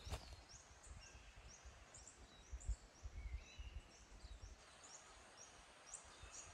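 Quiet forest ambience with a small bird giving a steady run of short, high rising chirps, about three a second, and a few lower rising notes in the middle.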